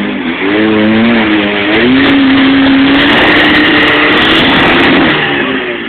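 Four-cylinder engine of an off-road 4x4 revving hard on a climb. Its pitch wavers for the first couple of seconds, then holds high for about two seconds before easing off near the end, over a loud rushing noise.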